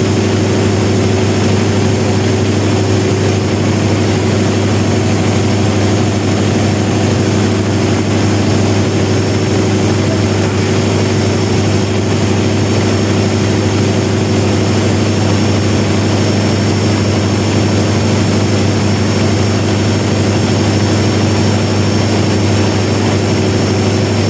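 1000 kW diesel generator set running at a steady speed, a loud, even drone with a strong low hum.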